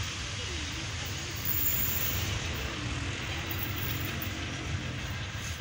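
Low, steady rumble of a distant 88 class diesel locomotive approaching along the line, with a faint engine tone coming in during the second half.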